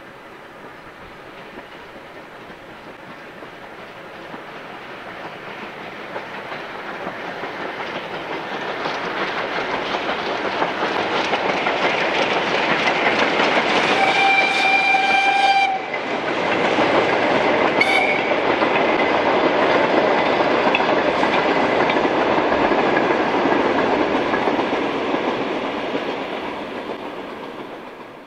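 Metre-gauge steam train hauled by a 1923 Mallet locomotive approaching and running past close by: the running noise of the train builds up, and the coaches' wheels rattle over the rails as they pass. About halfway through the locomotive's whistle gives one blast of under two seconds, then a short toot a couple of seconds later, before the noise dies away.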